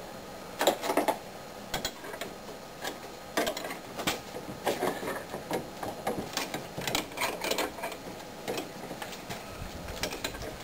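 Irregular light metallic clicks and taps from handling a double flare tool's clamping bar and tightening it onto a steel brake line.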